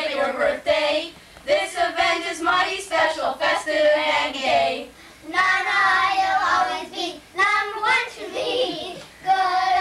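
A group of children singing together without accompaniment, in phrases with short breaks between them.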